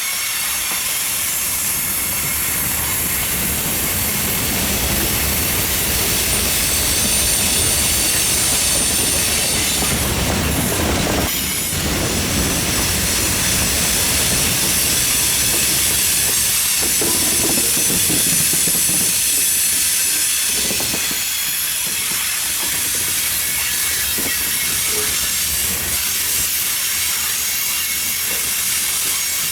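Freight cars of a mixed freight train rolling past on the rails: a steady low rumble of wheels with a continuous high-pitched hiss from the wheels on the rails.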